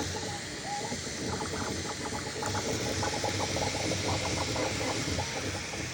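Bambu A1 3D printer running a print: its stepper motors give quick, short chirps and whines of changing pitch as the print head darts about, over a steady hiss of cooling fans.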